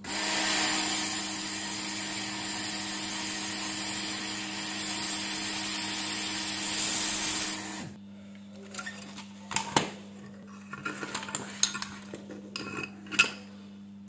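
Hot air rework station blowing onto a micro USB charging port on a circuit board, a steady hiss of air with a low hum, reflowing the solder paste under the port. It cuts off sharply about eight seconds in, followed by light clicks and taps as the board is handled.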